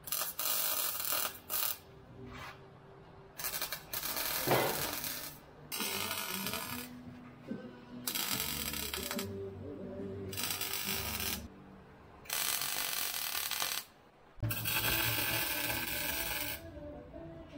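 Arc welding under a truck in about seven bursts of a second or two each, with short pauses between. This is a flange nut being welded into the drilled-out rear frame cross member to take a larger skid plate bolt.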